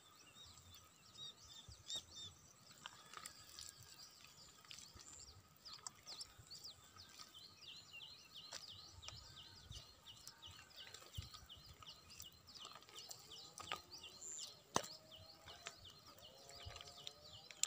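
Many small birds chirping rapidly and continuously in the background, with occasional soft thumps and a sharp knock or two from wet mud being dug and handled by hand.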